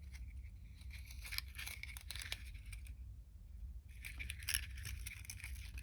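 Faint rustling and light clicks of thin 24-gauge jewellery wire being handled and drawn off its coil, easing off for about a second midway, over a low steady hum.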